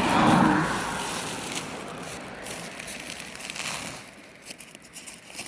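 Crinkling rustle of a feed sack being handled, loudest at first and dying away over about four seconds.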